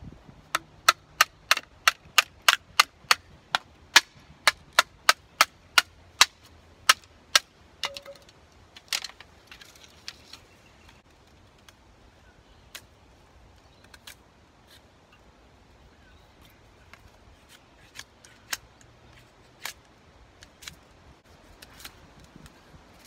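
Rapid, even series of sharp knocks from a hand tool striking wood, about three a second for some seven seconds, then scattered fainter strikes.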